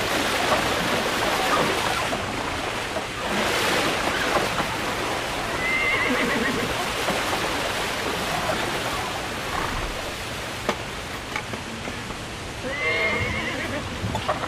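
Horses whinnying twice, about six seconds in and again near the end, over a steady rush of splashing river water as they wade across.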